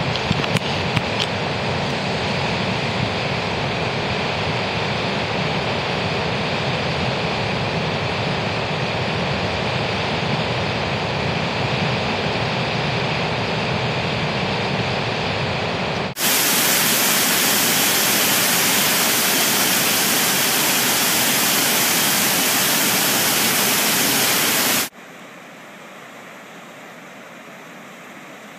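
Steady rushing of a flood-swollen river. About sixteen seconds in the sound cuts suddenly to a louder, hissier noise, which drops abruptly to a much quieter hiss near the end.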